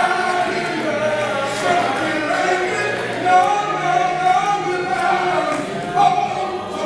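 Gospel song sung by men's voices, the lead sung into a handheld microphone.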